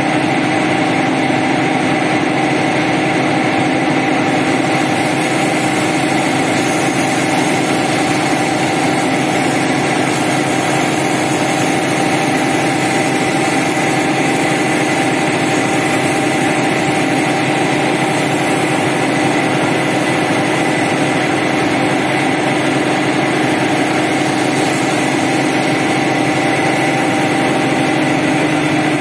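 Pressure washer running steadily: a constant motor-and-pump drone with a few steady tones, over the hiss of the water jet spraying onto a soaked carpet.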